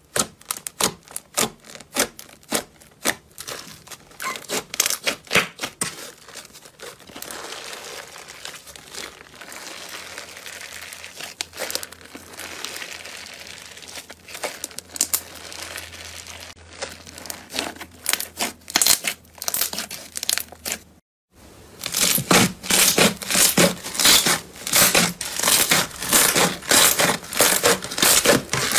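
Hands pressing, poking and stretching thick white slime, making a rapid run of small crackles and squelchy pops. After a short break about three-quarters through, green slime is squeezed, with louder, denser crackling.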